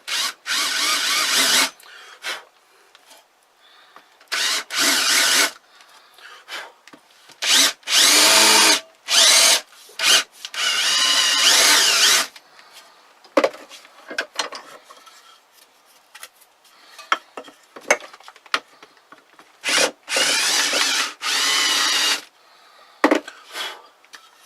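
Electric drill run in short bursts of a second or so, about seven times, with a countersink bit smoothing the end of a hole drilled through a piece of wood. There are small knocks between the bursts.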